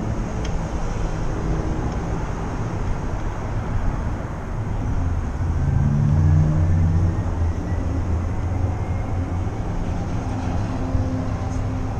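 Steady low rumble of vehicle noise, swelling for a couple of seconds around the middle.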